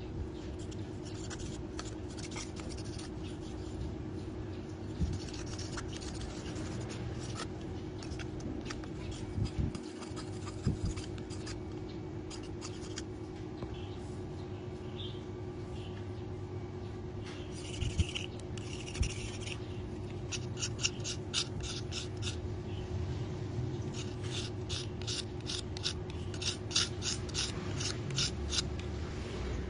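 Knife blade scraping and shaving a thin bamboo strip in repeated short strokes, which come quicker and more evenly, about three a second, in the last third.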